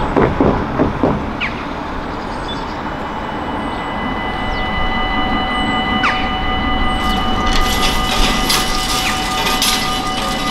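Dutch level-crossing warning bells start ringing about four and a half seconds in and keep up a fast, steady ringing, the signal that a train is approaching and the barriers are closing. Before that, a van drives across the crossing with road traffic behind it.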